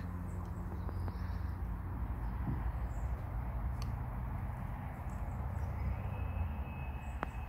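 Quiet outdoor garden ambience: a steady low rumble with a faint thin high tone coming in about six seconds in.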